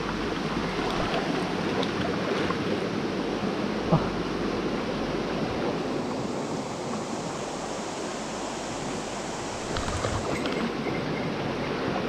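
Mountain stream water running steadily over a stony bed, an even rushing noise, with one brief light knock about four seconds in.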